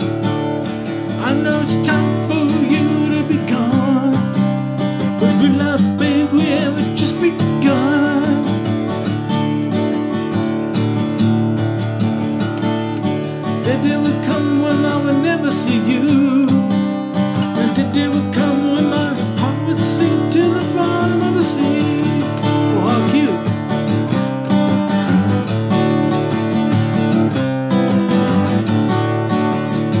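Acoustic guitar strummed steadily, chords with picked notes running through them.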